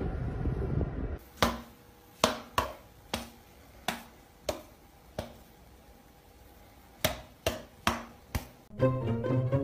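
A low rumble of noise inside a car cuts off about a second in. Then come about a dozen sharp snaps at an uneven pace, roughly one every half second with a longer gap in the middle. Music comes in near the end.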